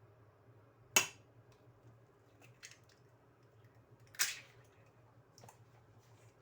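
Two sharp knocks of kitchen utensils or ware, about three seconds apart, the first the louder, with a few faint ticks in between over a faint steady low hum.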